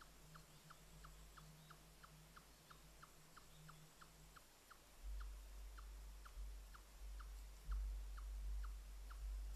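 A small animal calls a steady series of short, falling chirps, about three a second. From about halfway in, a low rumble comes up under the chirps and grows louder.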